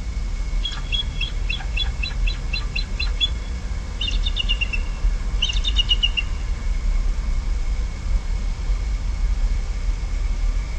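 Bald eagle calling: three runs of rapid, high chirping notes in the first six seconds, the first about two and a half seconds long and the other two shorter. A steady low rumble runs underneath.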